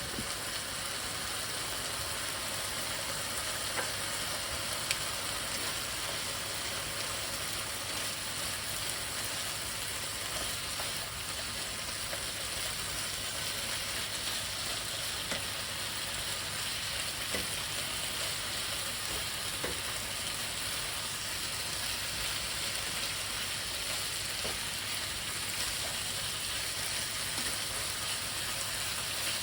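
Pan of sliced chicken, onions and wild rice sizzling steadily as its liquid boils down and reduces, with a few faint ticks.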